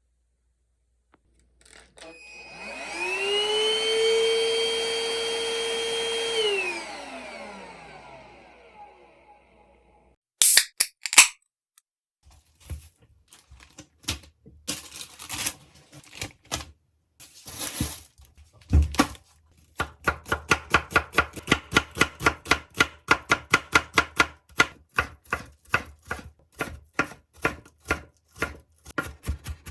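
Kitchen knife chopping vegetables on a cutting board: scattered knocks at first, then rapid, even strokes about three a second for the last ten seconds. Before that, a whirring motor spins up, holds a steady pitch for a few seconds and winds down.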